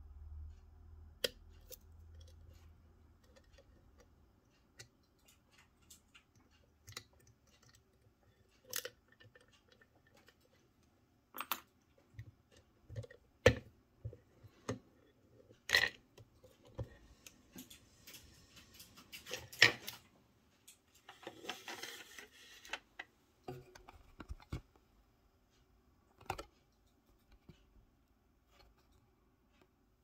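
Scattered small metal clicks and taps from handling a picked-open M&C Matrix lock and its picking tools, with a brief rattle about two-thirds through.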